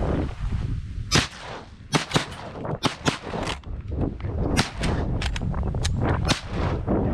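Several hunters' shotguns firing a rapid volley at ducks, about a dozen shots in overlapping bursts starting about a second in, over a low wind rumble.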